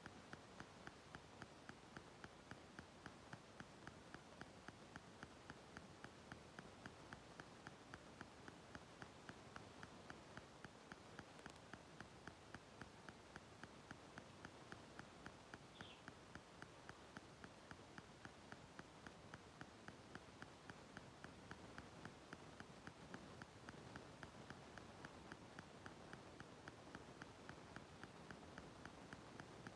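Near silence with a soft, regular ticking about three times a second.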